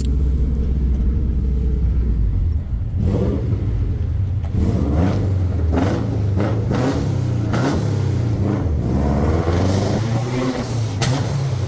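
Car engine running and revving, its low exhaust note rising and falling, with several sharp cracks or knocks from about three seconds in.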